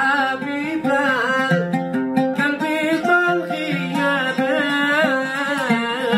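A man singing a Yemeni Sanaani song, his voice bending and wavering through an ornamented melody, with an oud plucked alongside him.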